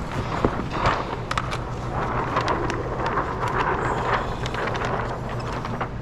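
Sheet of plastic window tint film rustling and crackling as it is lifted, shifted and smoothed by hand, with many short sharp crinkles, over a steady low hum.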